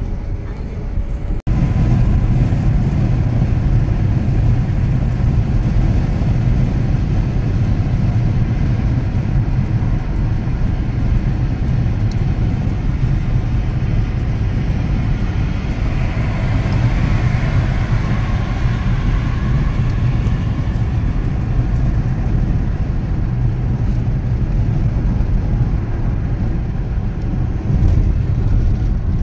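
Steady road noise of a car driving at highway speed, heard from inside the cabin: a low engine and tyre rumble with wind hiss. The sound breaks off briefly about a second and a half in, and the hiss swells for a few seconds around the middle.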